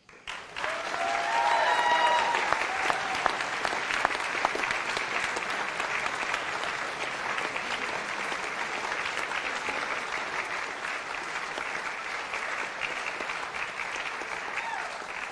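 A theatre audience applauding steadily, starting right after the prize is announced and easing off near the end. A brief call from a voice rises out of the clapping about a second and a half in.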